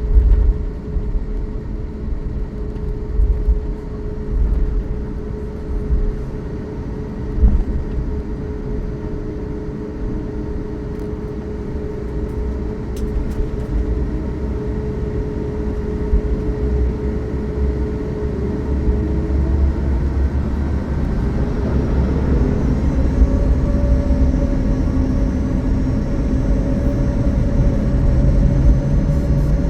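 Boeing 737 MAX cabin with the CFM LEAP-1B turbofans' steady whine and a rumble from the wheels while taxiing; about twenty seconds in the engine whine rises in pitch and grows louder as the engines spool up for the takeoff roll.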